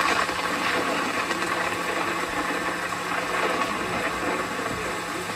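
Rain-like rushing hiss from a music video's opening, played back through speakers. It comes in suddenly just before and slowly thins out, with no music yet.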